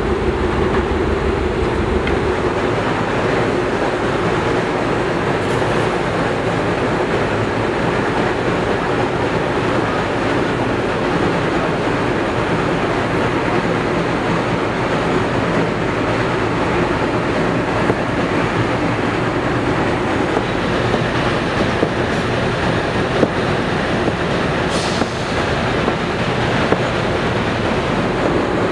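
A steady, loud rushing noise with a mechanical character, with a few faint clicks.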